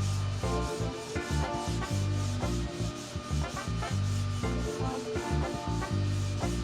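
Rhythmic back-and-forth hand sanding of cured body filler on a car wing, heard as repeated rasping strokes, under background music with a pulsing bass line.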